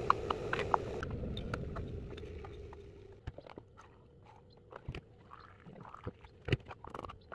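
Collapsible silicone travel cups being popped open and their plastic lids handled on a countertop: scattered clicks, taps and light scrapes, with one sharp knock about six and a half seconds in. A steady rushing hum fades away over the first three seconds.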